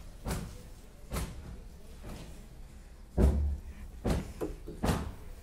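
A series of sharp knocks and bumps, about six of them at uneven intervals. The loudest is a deep thud about three seconds in, and three more come close together near the end.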